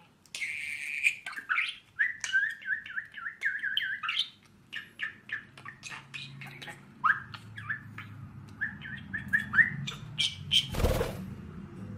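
Male budgerigar singing its chattering warble of quick chirps, clicks and short squawks, the song a cock budgie keeps up to its reflection in a mirror. A short loud burst of noise near the end.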